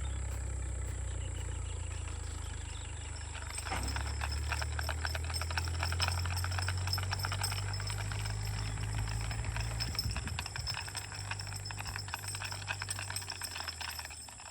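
A vehicle engine running steadily with a low hum; about four seconds in a dense rattling sets in and lasts several seconds. The engine dies away near the end.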